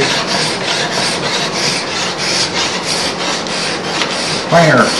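Steel hand scraper cutting across the grain of a rough wooden tabletop in repeated short strokes, a dry scraping of the cabinet scraper's burr taking fine shavings from the wood.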